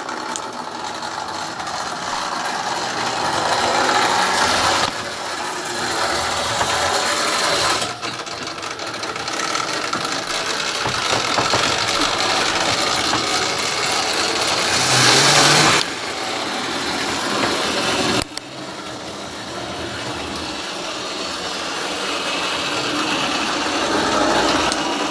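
Model railway rail car running along the track, its small electric motor whirring and its wheels rattling on the rails. The sound swells and fades, loudest a little past the middle, and drops off abruptly several times.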